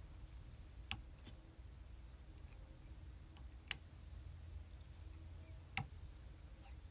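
Faint ticks and three sharper clicks, about two seconds apart, from hands, thread and tools being worked at a fly-tying vise, over a low steady hum.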